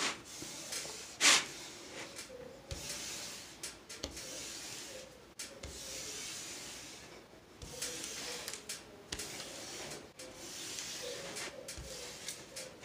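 A hand rubbing and sweeping over the printed protective sheet of a large diamond painting canvas, in several long strokes with short pauses between them. There is a sharp knock about a second in.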